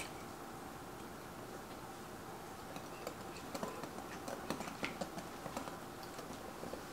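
Flour being poured from a small glass bowl into a glass mixing bowl holding a wire whisk. Faint, irregular light clicks of glass and the whisk's wires against the bowl start about three seconds in.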